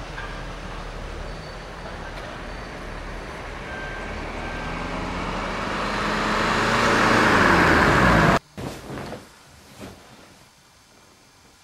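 A car approaching, its engine and road noise growing steadily louder for about eight seconds, the pitch sliding downward as it nears, then cut off abruptly; a few faint soft sounds follow.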